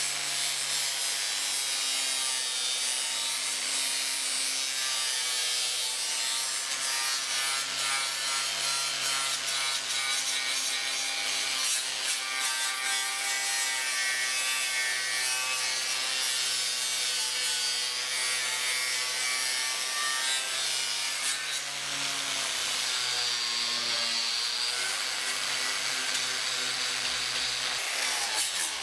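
Angle grinder with a strip-and-clean disc running against the car's A-pillar and roof edge, stripping the paint down to bare metal. It makes a steady, harsh abrasive scraping over the grinder motor's whine, whose pitch wavers as the disc is pressed in.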